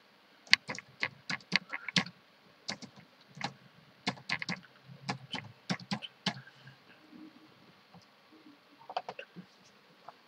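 Typing on a computer keyboard: a quick run of keystrokes from about half a second in until about six seconds in, then a brief flurry of keystrokes near the end.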